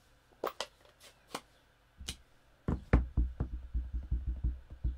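A few sharp clicks as the ink pad and stamp are handled. Then a rapid run of soft thuds, about eight a second for nearly two seconds: a rubber stamp on a clear acrylic block being tapped over and over onto a Mango Melody ink pad to ink it.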